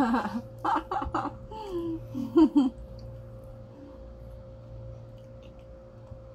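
Laughing and short voiced sounds for the first two and a half seconds, loudest near the end of that stretch, then a quiet room with a faint steady hum.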